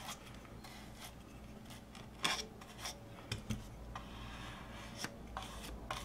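Paintbrush strokes over a glued paper napkin on a small wooden birdhouse: faint scratchy rubbing, with a few light taps of the brush or wood, the loudest a little over two seconds in.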